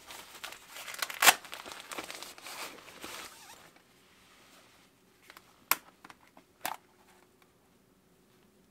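Rummaging in a fabric camera sling bag: rustling and crinkling for about three and a half seconds, with a sharp snap about a second in. Then a few sharp clicks of hard gear being handled, the two loudest about a second apart.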